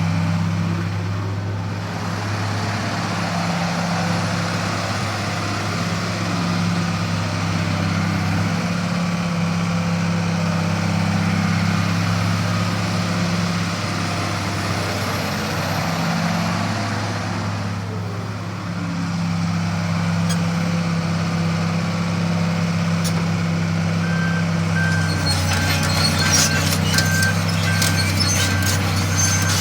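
1999 Komatsu PC400LC excavator's diesel engine running steadily, its note dipping and recovering a few times. From about 25 seconds in, an alarm beeps evenly over sharp metallic clanking and rattling.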